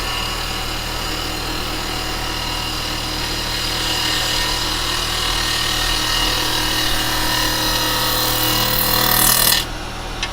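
Wood lathe running, with a turning tool taking finishing cuts on a green cherry blank: a dense hiss of the cut over the steady motor hum. The hiss grows louder through the middle and stops abruptly shortly before the end as the tool comes off the wood.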